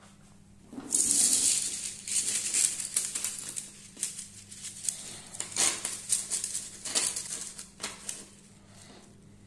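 Thin bamboo sticks clattering and rattling against each other and the tabletop as they are swept up by hand and gathered into a bundle. It starts about a second in, comes in uneven bursts of clicks, and dies away near the end.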